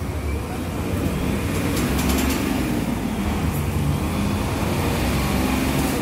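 Mercedes-Benz OF-1721 bus's front-mounted OM 366 LA six-cylinder turbo diesel running while the bus stands still, getting louder about a second in, with its pitch wavering. Road traffic passes in the background.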